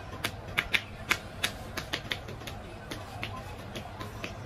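Barber's hands tapping and chopping on a man's head in a head massage: a quick, irregular run of sharp slaps and clicks that thins out after about two and a half seconds, over a steady low hum.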